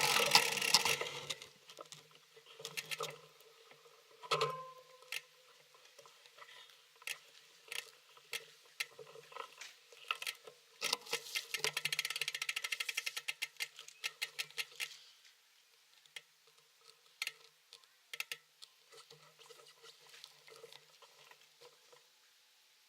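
Irregular light mechanical clicking and ticking, with a single louder knock about four seconds in and a run of rapid ticking from about ten to fifteen seconds in.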